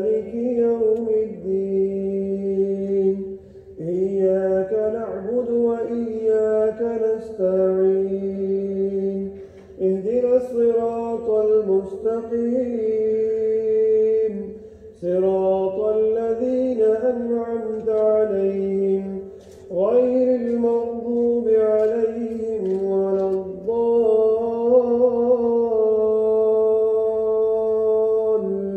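A man reciting the Quran aloud in a slow, melodic chant. He holds long notes in phrases of about four to five seconds, with short breaks between them.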